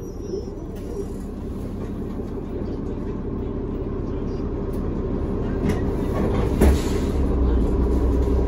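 Interior rumble of a New Flyer D40LF transit bus with its Cummins ISL inline-six diesel, growing steadily louder as the bus pulls away and gathers speed. A single sharp knock comes about two-thirds of the way in.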